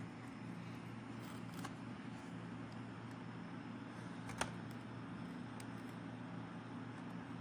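Steady low hum with faint ticks and one sharp click about four seconds in, from a plastic laptop bottom cover being pried open.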